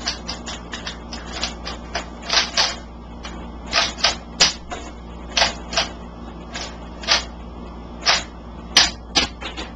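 Plastic clicks and clacks of a toy pump-action shotgun: light clicks as shells are pushed into the loading port, then louder clacks, often in pairs, about once a second as the pump is racked back and forth to eject the shells.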